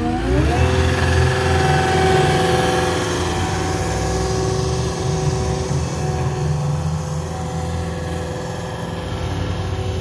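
Caterpillar 236D skid steer's diesel engine revving up in the first half-second, then running steadily at high speed as the machine travels.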